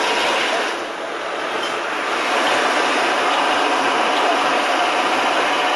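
Steady, loud mechanical running noise of a crane heard from inside its cab, easing slightly about a second in.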